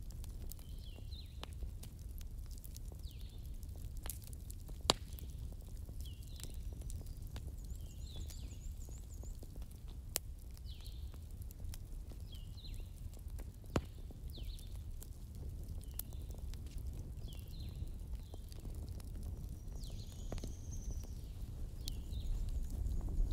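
Wood fire crackling in a fireplace: a steady low rumble with a few sharp pops, joined by short high chirps repeating about once a second.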